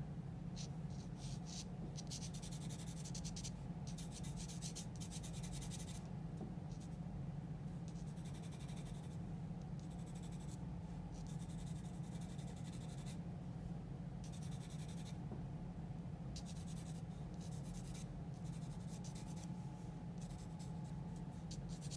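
Graphite pencil scratching over drawing paper in runs of quick strokes with short pauses between them, over a steady low hum.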